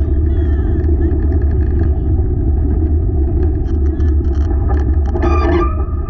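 Steady low rumble of a wheeled dog-sled training rig rolling along the trail. About five seconds in, a high, wavering whine with several pitches joins it.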